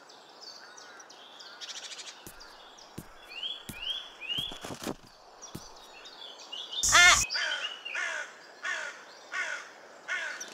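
Small birds chirping, then a crow cawing five times in a row from about seven seconds in, the first caw the loudest.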